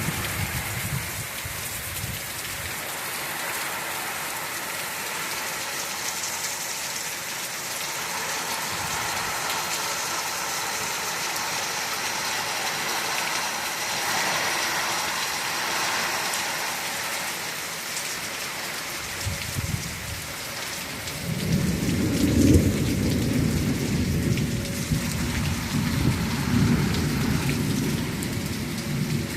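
Steady rain during a thunderstorm. About two-thirds of the way through a long, low rumble of thunder comes in, loudest a few seconds after it starts, and goes on rolling to the end.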